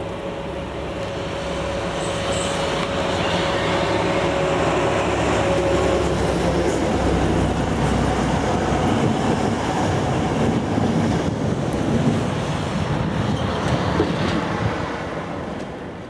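PKP class SU45 diesel locomotive passing with a train of double-deck coaches. The engine note comes first, then the rumble and wheel clatter of the coaches, loudest in the middle and dropping away near the end.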